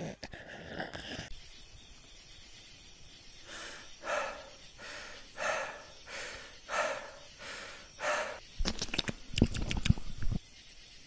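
Cartoon sound effects: about eight short soft swishes, evenly spaced about two-thirds of a second apart, then a quick run of crackling clicks that stops abruptly, over a faint steady hiss.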